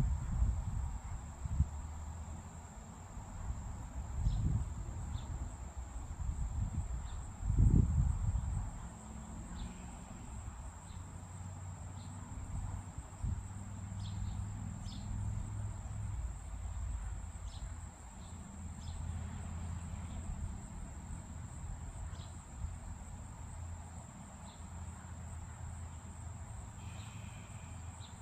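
Insects keep up a steady high-pitched trill, with scattered short high chirps over it. Low rumbles and a couple of thumps come in the first eight seconds.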